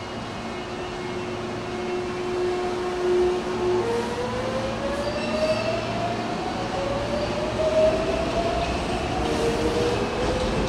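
Hankyu electric train accelerating out of the station: its motor drive whines, a steady tone stepping up in pitch about four seconds in and then climbing steadily as the train gathers speed, over the rumble of the wheels.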